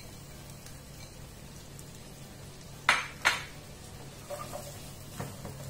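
Vegetables sautéing in butter in a frying pan, a faint steady sizzle under a spatula stirring them. About three seconds in come two sharp clinks less than half a second apart, the loudest sounds, followed by a few lighter taps and scrapes.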